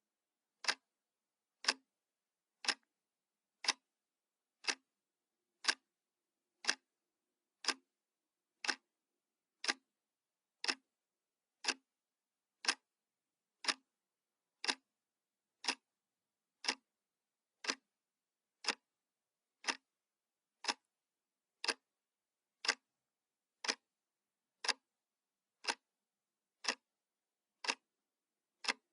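Clock ticking sound effect: one sharp tick a second, evenly spaced, with dead silence between the ticks.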